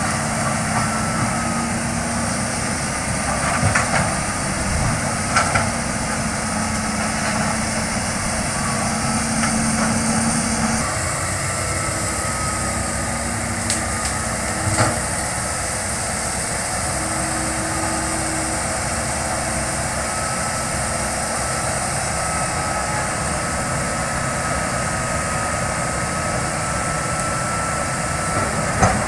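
Hitachi crawler excavator's diesel engine running steadily with a steady whine over it, and a few sharp knocks as it works through brush.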